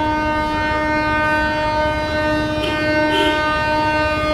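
Air horn of an approaching Indian Railways WAP7 electric locomotive sounding one long blast at a single steady pitch, cutting off near the end, over the low rumble of the train.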